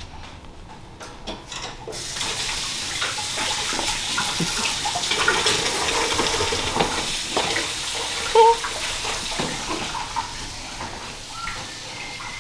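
Kitchen tap running into a sink, coming on about two seconds in and flowing steadily, with scattered knocks and clinks.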